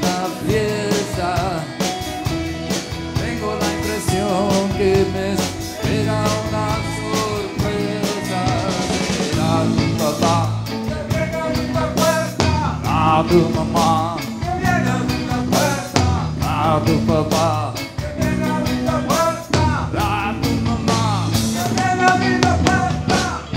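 Live rock band playing loud: electric guitars, bass guitar and drum kit, with a singing voice over the band.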